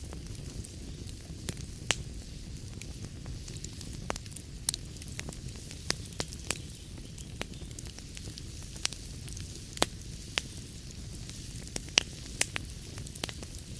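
Wood fire burning in a fireplace, crackling and popping: a steady low rumble and hiss of flames under irregular sharp pops, the loudest about two seconds in and near the end.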